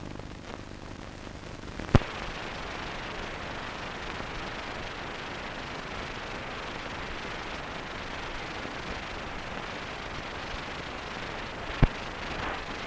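Steady hiss of an old film soundtrack carrying no speech or music, broken by two sharp clicks, one about two seconds in and one near the end.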